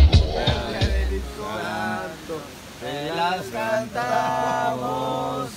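Hip-hop music with heavy bass cuts off about a second in, followed by male voices singing without accompaniment and holding long notes.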